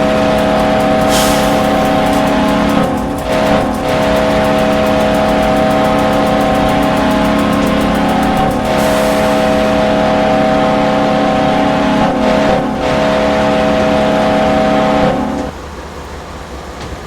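Kahlenberg Q-3 air horn, the Buffalo Sabres goal horn, sounded as a locomotive horn in long blasts: a steady multi-note chord with short breaks about 3, 9 and 13 seconds in. It cuts off about 15 seconds in, leaving a lower rumble.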